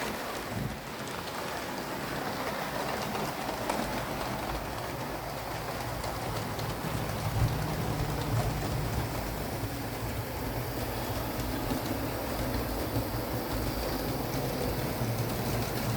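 Hornby OO gauge Battle of Britain class model locomotive running along the track: a steady low motor hum with light clicks from the wheels on the rails. The hum grows stronger about six seconds in.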